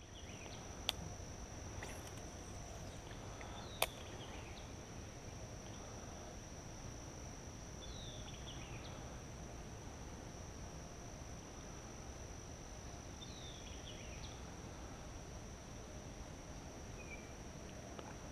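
Insects holding one steady high-pitched drone, with a few short falling bird chirps every several seconds. Two sharp clicks, the loudest sounds, come about one second and about four seconds in.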